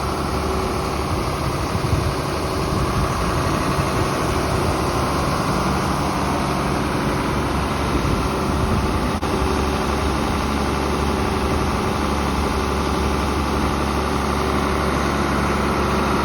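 John Deere 4440 tractor's six-cylinder diesel engine running steadily at a constant speed, driving the grain cart's auger as it unloads corn into a straight truck.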